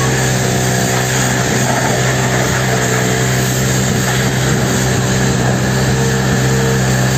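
High-pressure washer running steadily: a constant motor-and-pump drone under the hiss of water jets spraying a rally car's bodywork.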